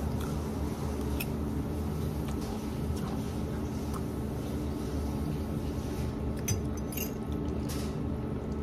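Steady low hum of restaurant kitchen equipment, with a few light clinks of a metal fork against a plate as spaghetti is twirled and eaten.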